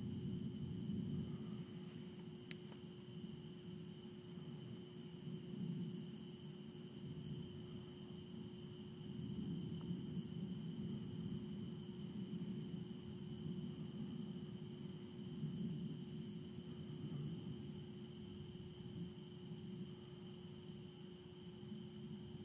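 Night insects chirping in a fast, even pulse that goes on steadily, over a low, swelling and fading rumble. A single sharp click about two and a half seconds in.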